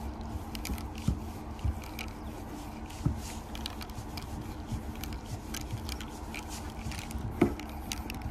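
Nib of a Molotow Dripstick squeeze marker dragging and tapping across a painted metal cabinet door as a tag is written: scattered small scrapes and clicks, with a sharper knock about seven seconds in.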